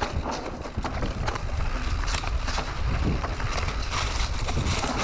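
Canyon Neuron full-suspension mountain bike riding down a dry dirt trail: tyres rolling over dirt, stones and dry leaves with a continuous low rumble, and the bike clattering over bumps in many short knocks.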